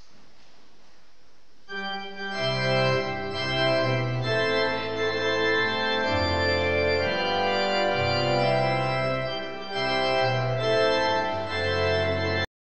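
Church organ playing held chords with changing bass notes. It comes in about two seconds in over faint room hiss and cuts off abruptly near the end.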